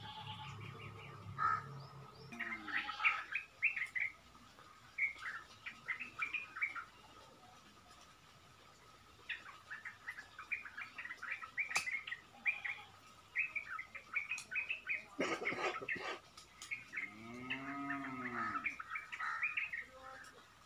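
Small birds chirping and twittering in short bursts, and near the end a cow mooing, one long low call that rises and falls.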